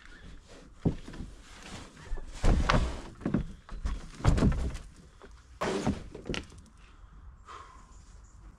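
A series of about six dull thunks and knocks of objects being handled and set down, the loudest about two and a half and four seconds in.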